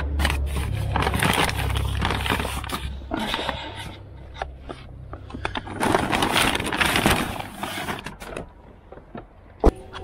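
Paper grocery bags rustling and crinkling as they are lifted out of a car and set into a folding wagon, in two bouts of handling with a low rumble under the first. A single sharp knock near the end.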